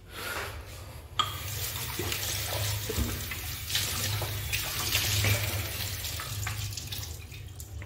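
Kitchen tap running over a steel sink while a glass cup is rinsed under the stream, with a few light knocks of glass and dishes. The water comes on sharply about a second in and eases off near the end.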